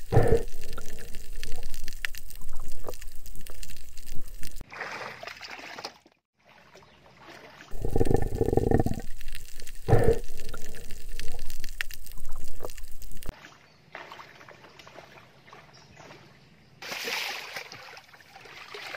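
Water bubbling, sloshing and rushing against an underwater camera, in several short clips that cut in and out abruptly, with occasional clicks.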